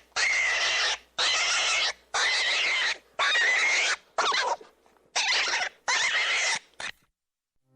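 Rabbit squealing in a run of about seven loud, screechy cries, each under a second long with short gaps between them. The cries stop about a second before the end.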